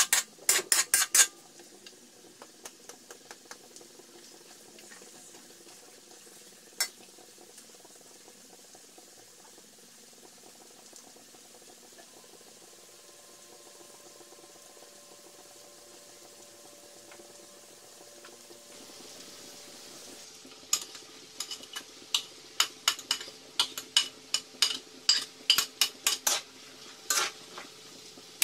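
Metal spatula scraping and clinking against a metal wok while diced squash is stir-fried. There are quick runs of strikes at the start and again over the last several seconds, with a faint sizzle in between.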